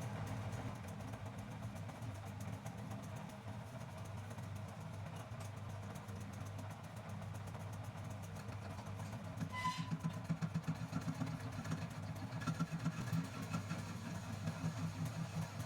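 Homemade metal lathe running: its motor turns the spindle through the belt and pulleys with a steady hum. A short clink comes about ten seconds in, and the sound turns uneven and pulsing after that.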